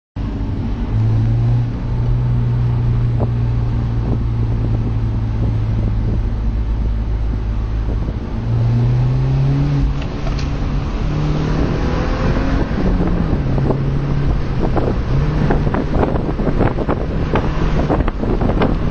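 BMW Z4 E85 2.0i's four-cylinder engine running under way, its note holding steady for several seconds, then stepping up and down in pitch. Wind noise grows from about halfway, with crackling buffets on the microphone near the end.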